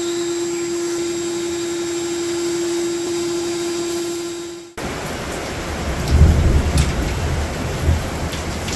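Shop vac running with a steady whine, vacuuming up the oil that soaked the mower engine's spark plug. It cuts off suddenly about five seconds in, leaving steady rain with a low rumble of thunder about six to seven seconds in.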